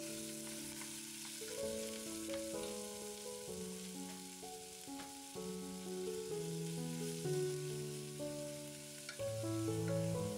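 Beef chunks sizzling as they brown in a stainless-steel pot, stirred with a wooden spoon, with a few light clicks of the spoon against the pot. Background music with held notes that change every second or so plays over it and is the loudest part.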